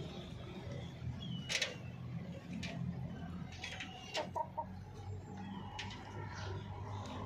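Domestic chickens making scattered short chirps and clucks, with a few sharp clicks mixed in, over a low steady background rumble.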